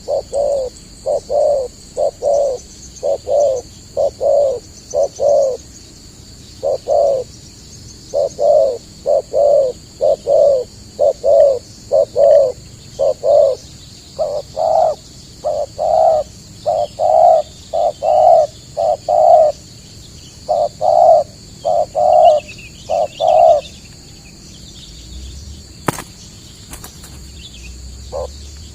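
Spotted dove (tekukur) cooing: a long run of short, low coos, about one and a half a second, that stops about 24 seconds in. A few sharp clicks follow near the end.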